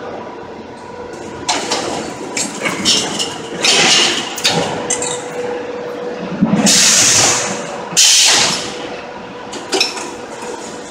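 Concrete-block production line machinery at the stacker and roller conveyor handling boards of fresh blocks: a steady machine hum with a run of metallic clanks and knocks, then two loud hissing bursts about two-thirds of the way through.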